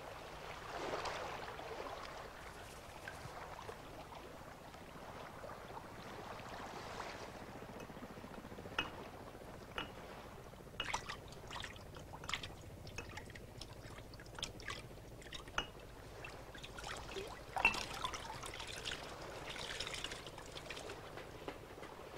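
Faint trickling water, then many small drips plinking irregularly from about eight seconds in.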